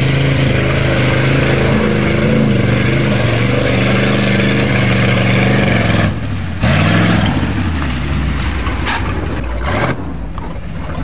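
4x4 truck engines running steadily as they drive through mud, then cutting off abruptly about six seconds in. After the break an engine revs up and down a couple of times.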